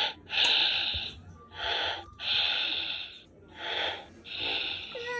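Baby snoring: three breath cycles about two seconds apart, each a short noisy breath followed by a longer one.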